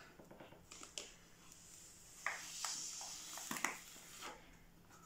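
Breath blown into the small hole of a folded paper origami cube to inflate it: a soft airy hiss lasting about two seconds, starting about two seconds in, with a few light clicks of the paper.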